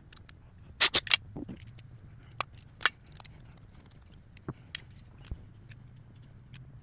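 Scattered sharp clicks and clinks of tools and small metal parts being handled, with a quick clatter about a second in and single clicks after it.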